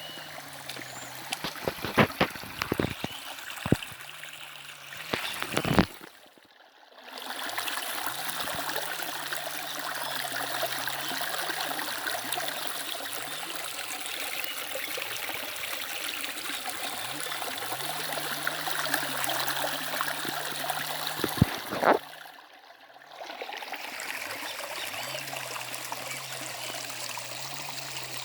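River water flowing: a steady rushing and trickling. There are a few sharp knocks in the first six seconds and another about 21 seconds in, and the water sound dips briefly twice, just after the knocks at about 6 and 22 seconds.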